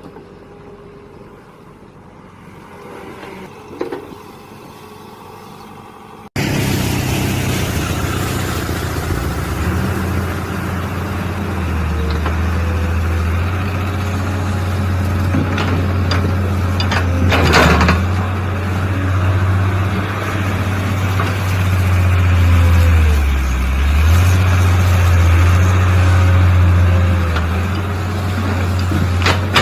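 Mini excavator engine running steadily, its note sagging briefly as it takes load, with a couple of sharp knocks. It comes in abruptly about six seconds in; before that there is only a quieter rumble.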